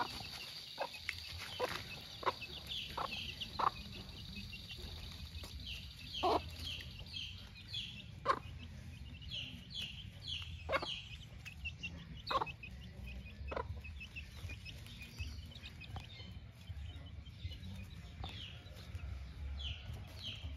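Gamefowl hen clucking in short single clucks while her chicks peep constantly in high, falling cheeps.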